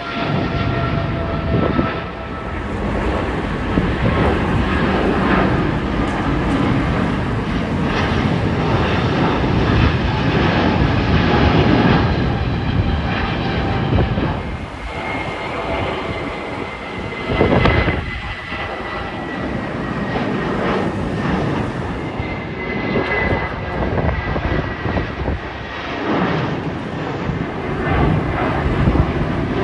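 Twin-engine jet airliners climbing out after takeoff one after another (a Boeing 777, an Airbus A350, then an Airbus A320-family jet), their turbofan engines giving a steady loud roar with a high whine that slowly falls in pitch. The sound changes abruptly a couple of times as one aircraft gives way to the next.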